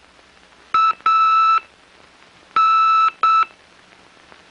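Morse code (CW) keyed as a steady beeping tone at a slow speed: a dot and a dash, a pause, then a dash and a dot. It is code practice sent by W1AW, the American Radio Relay League's station, picked up on a receiver.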